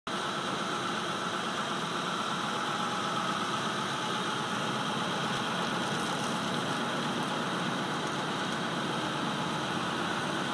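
A brine truck's engine idles steadily, giving an even mechanical hum mixed with hiss that does not change.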